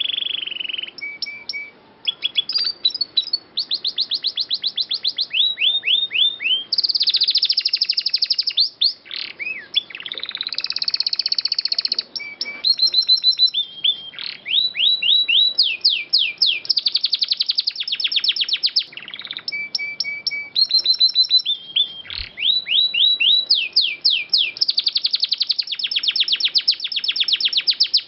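Domestic canary singing a long, fast song: rapid trills of repeated notes, quick runs of sweeping notes and held high whistles, with brief pauses between phrases.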